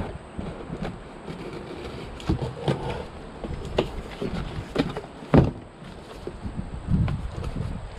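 Cardboard shipping box being opened with scissors: tape slit, flaps pulled back and the cardboard scraping and crackling in scattered handling noises, with a sharp knock about five seconds in.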